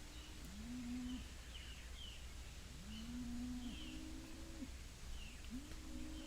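Animals giving a string of low, hooting calls, several overlapping at about one a second, each rising briefly and then held level, with faint high bird chirps above.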